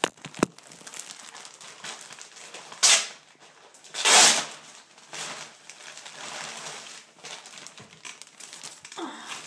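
A plastic packaging bag crinkling and rustling as it is handled and opened, with two louder rustles about three and four seconds in. Two sharp knocks come at the very start.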